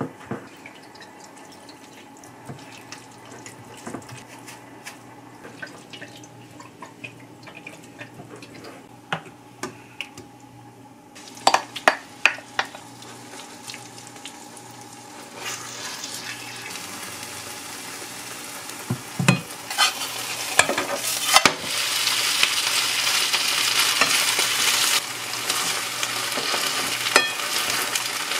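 Wooden spoon stirring kimchi pancake batter in a glass bowl, with light scraping and knocks. Then batter sizzling in a frying pan as it is spread thin and pressed with a slotted turner, with scattered knocks of utensil on pan; the sizzle grows louder over the second half.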